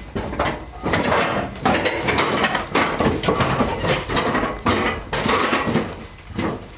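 Footsteps and irregular metal clanks and knocks as a crewman walks along the metal floor of a TEP60 diesel locomotive's engine-room passage and goes through a cab door.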